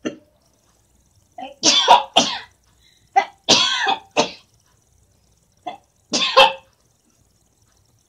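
A woman coughing hard in repeated fits: three main bouts of several coughs each, with single coughs between. She is choking on the smoke of dried chillies burnt in hot oil.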